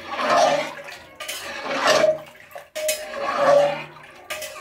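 Metal spoon stirring a thick pea mixture in an aluminium pressure cooker, scraping the pot and sloshing in slow strokes about every second and a half.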